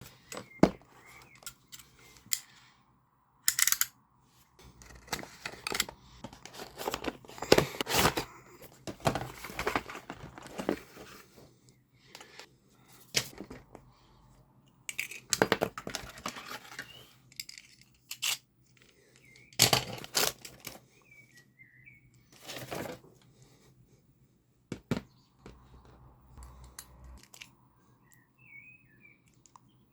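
Beyblade packaging being torn open and handled: irregular bouts of tearing and crinkling of card and plastic, with scattered sharp clicks and taps.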